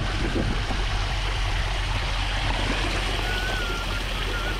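Water pouring and trickling out of a flooded car's open door and sills, splashing steadily into the lake water below.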